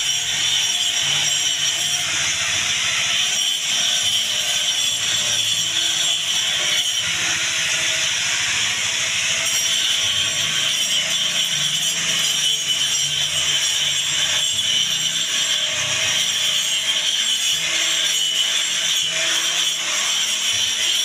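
Handheld angle grinder grinding the edge of a round metal plate, a steady high grinding noise.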